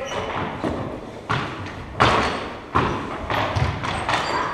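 Floor hockey play in a large gym: sticks and ball knocking against the hardwood floor, a handful of sharp knocks with the loudest about two seconds in, each echoing off the hall's hard walls.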